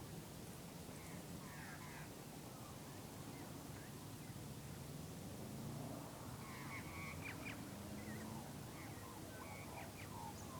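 Birds chirping and calling, with short sliding calls that grow busier about halfway through, over a steady low background rumble.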